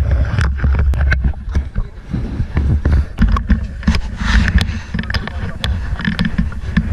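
Knocks, clicks and rubbing of an action camera being grabbed and handled, over a choppy low rumble.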